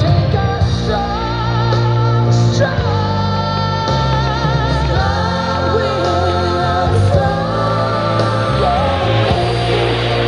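A song with a sung vocal over a steady bass line; the singer holds long notes with vibrato.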